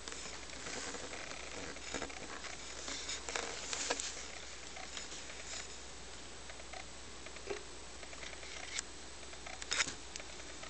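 Faint rustling with scattered soft clicks and taps, a few clustered about three to four seconds in and again near the end, from a handheld camera being moved and handled.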